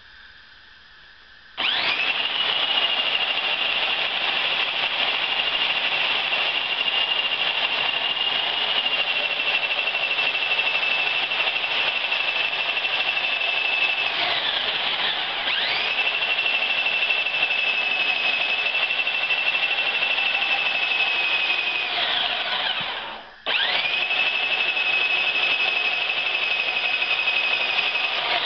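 Homemade handheld bandsaw mill, powered by a mounted circular saw (Skilsaw) motor, starting up about a second and a half in and running with a loud, steady high whine as it rips a 2x4 lengthwise. The whine dips briefly and picks up again around the middle. Later it winds down almost to a stop and starts up again.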